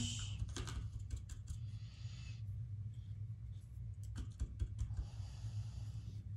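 A small paintbrush being washed in a cup of water: a scatter of light clicks and taps as it knocks against the cup, with a few short stretches of hiss. A steady low hum runs underneath.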